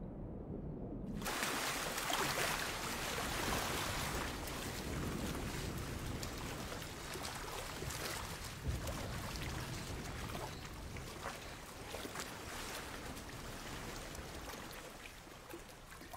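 Muffled, low underwater sound for about the first second, then a sudden cut to the steady rush of choppy shallow sea, with water splashing as a man swims and wades through it.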